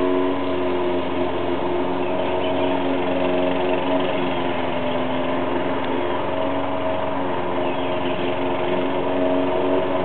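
Lawn mower engine running steadily, its pitch wavering slightly.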